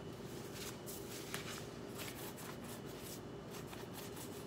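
Hands rolling a piece of yeast dough into a rope on a granite countertop: faint, soft brushing rubs of palms and dough against the stone, several in a row.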